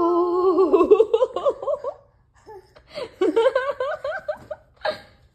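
A toddler laughing in two bouts of rapid giggles, the first coming straight off a held vocal note, with a short last giggle near the end.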